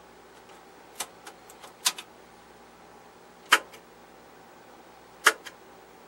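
Front-panel controls of a Tektronix 465 oscilloscope being switched: a handful of sharp, short clicks at irregular intervals, several followed by a softer second click.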